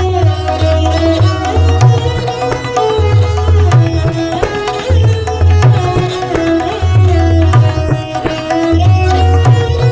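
Indian devotional kirtan music: a melody moving in steps between held notes over a steady, repeating low drum beat.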